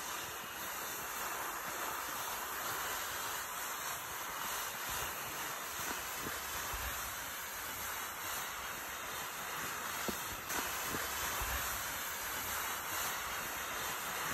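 Plastic saucer sled being dragged over packed snow, a steady scraping hiss, with now and then a soft low thump.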